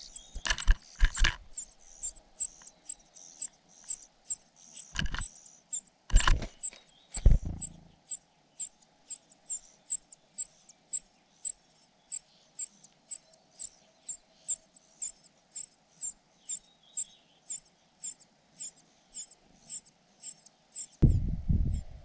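Nestlings begging at the nest with a regular run of thin, very high-pitched calls, about two a second. In the first several seconds, while an adult songbird feeds them at the rim, loud knocks and rustles sound close by. Near the end a loud low rumble comes in.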